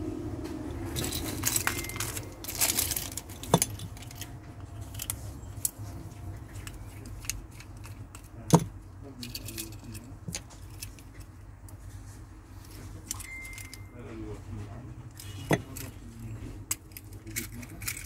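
Keys and metal key rings jangling and clicking as a remote fob on a keyring is handled, with a few sharp clicks, the loudest about eight and a half seconds in.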